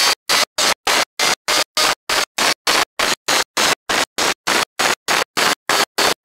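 Onboard sound of a Kawasaki ZZR1400's inline-four at speed, mostly a hiss of wind and engine noise, chopped into short bursts about three times a second with complete silence between them: an audio dropout fault in the recording.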